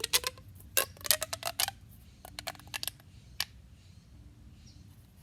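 Fidget toys being handled, making a run of sharp plastic clicks and taps. They come in quick clusters through the first three seconds, with one more a little after, then it goes quiet apart from a faint hum.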